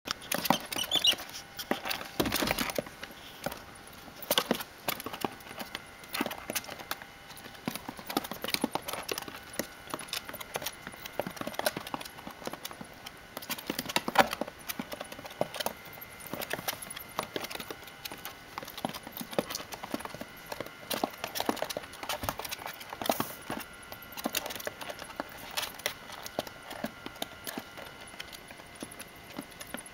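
A hedgehog's claws clicking and tapping on the hard plastic floor of a storage bin as it scurries about, a quick irregular patter with a few louder knocks.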